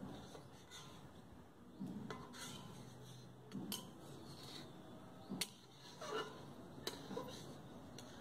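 A metal ladle scraping and clinking against a black kadai as thick green dal is stirred, with a few faint, irregularly spaced clinks.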